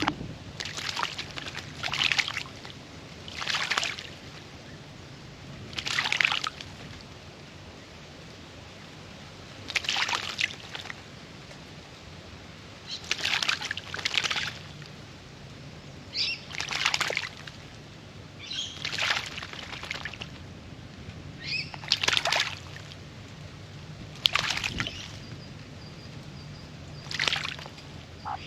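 An Australian magpie bathing in a birdbath, splashing water in about a dozen short bursts with uneven pauses of one to four seconds between them.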